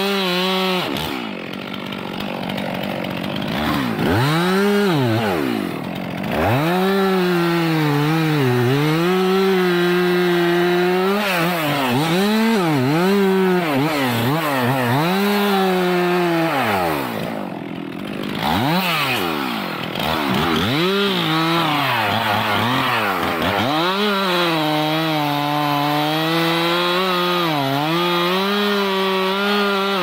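Stihl MS 362 C two-stroke chainsaw making a felling cut into a tree trunk at full throttle, its engine pitch sagging under load and climbing back again and again. The throttle drops off briefly several times, longest about two seconds in and just past halfway.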